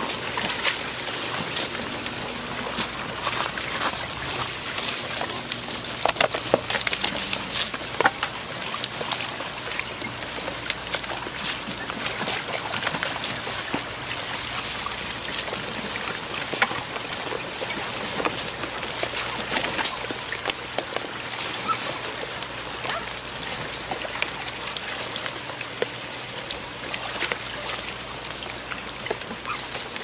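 Flock of brown pelicans jostling at plastic tubs of water at feeding time: water splashing and sloshing as bills plunge into the tubs, mixed with flapping wings and a constant patter of small clattering knocks.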